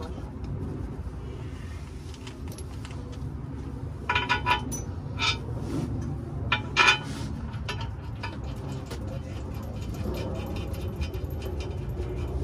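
A handful of sharp metal-on-metal clinks with a brief ring, clustered about four to seven seconds in, over a steady low hum.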